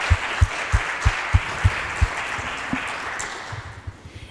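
Audience applause dying away near the end, with regular low thuds about three a second under the clapping.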